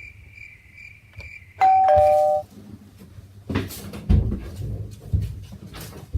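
Doorbell-style two-note chime, a falling ding-dong about a second and a half in, over a faint high pulsing beep. A run of scattered knocks and thumps follows.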